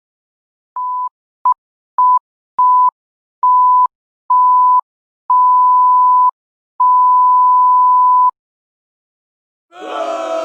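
A pure electronic beep at one steady pitch, the classic censor bleep tone, sounded eight times, each beep mostly longer than the last until the final one lasts about a second and a half.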